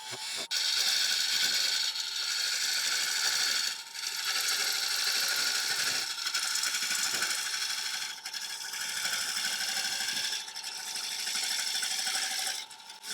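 A turning tool cutting into the inside of a spinning ash bowl on a wood lathe: a steady, rough shearing and rattling of wood being cut away, pausing briefly near 4 seconds and again near 10 seconds, over the lathe's steady thin whine.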